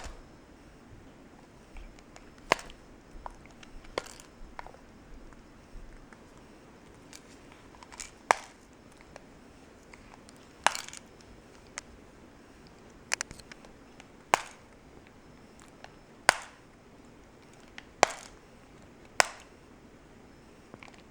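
Plastic TV remote control clicking and cracking in sharp single snaps, one every second or two, as a capuchin monkey bites and pries at it to tear its buttons off.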